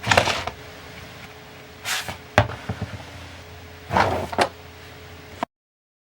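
Handling noise from a cordless stick vacuum's floor nozzle, with several short swishing bursts and a sharp knock over a faint steady hum; the sound cuts off abruptly about five and a half seconds in.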